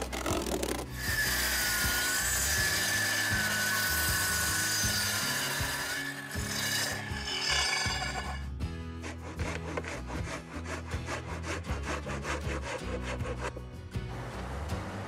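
Plunge-cut track saw running along its guide rail through a wooden beam: a steady motor whine that sags a little under load for about five seconds. Then, from about nine seconds in, timber is sawn in quick, even strokes.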